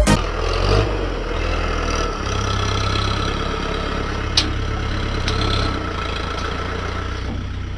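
A tractor's diesel engine running steadily, its low note getting a little louder and deeper about two seconds in. One sharp click comes a little over four seconds in.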